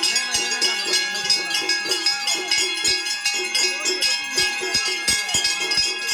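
Temple bells ringing continuously during worship at a shrine, several held ringing tones over a string of sharp strikes about twice a second.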